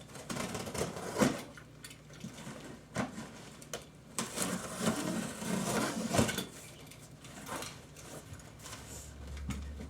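A cardboard shipping box being handled and opened: irregular knocks, scrapes and rustles, with a sharper knock about a second in and another about six seconds in.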